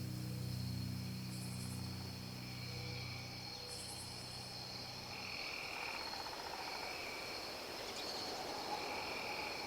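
Insects trilling steadily, with repeated short pulsed calls of insects or frogs coming and going every second or two. Low background music stops about five seconds in.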